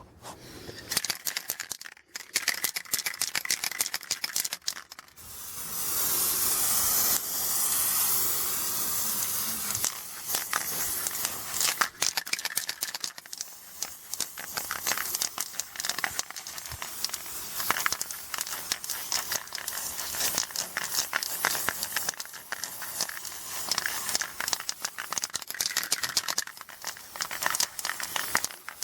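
Aerosol spray paint cans: rapid clicking and rattling of the mixing ball as a can is shaken, and a steady spray hiss lasting about five seconds near the start.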